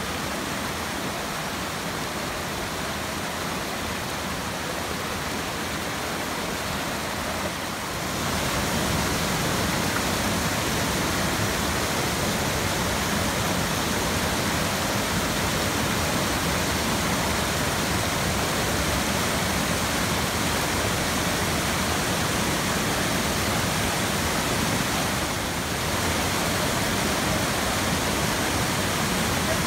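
Steady rushing of a mountain stream and waterfall pouring over granite ledges. It turns louder and fuller about eight seconds in, with a brief dip near the end.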